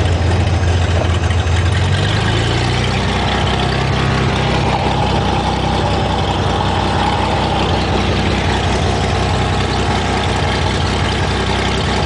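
Cessna 210's six-cylinder piston engine and propeller running loud and steady during the takeoff roll, heard from inside the cabin. The engine note changes about two seconds in, then holds.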